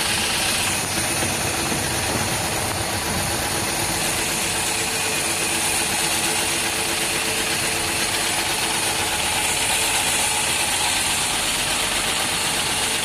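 Heavy-duty industrial sewing machine (JK 202 800A, built for flight cases and trolley cases) running steadily, its mechanism going at an even pace without a break.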